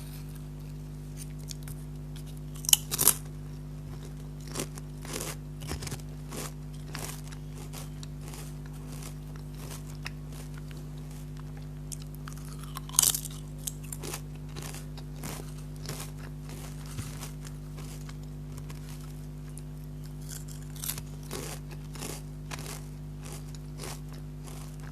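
Lay's potato chips crunched and chewed close to the microphone. There are loud bites about three seconds in and again about thirteen seconds in, with softer crunches between, over a steady low hum.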